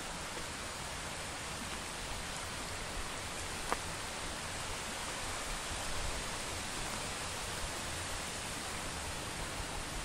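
Waterfall water rushing in an even, unbroken wash, with one small click a little before the middle.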